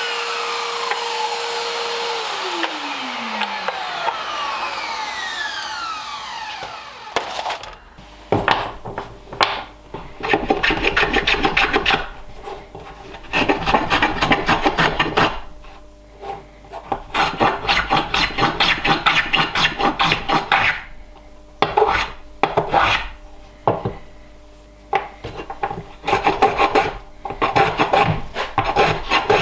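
A power tool's whine falling in pitch as it spins down over the first several seconds. Then a block plane bevelling the edges of oak blocks in repeated strokes, each a second or two long with short pauses between.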